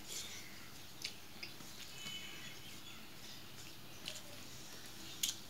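Eating by hand from a steel plate: chewing and fingers working the food on the plate, heard as a few short sharp clicks, the loudest near the end.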